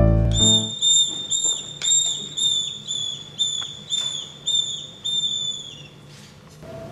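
A whistle blown in a run of about a dozen short, high notes, roughly two a second, each dipping in pitch as it ends, after the last of a piano tune fades out.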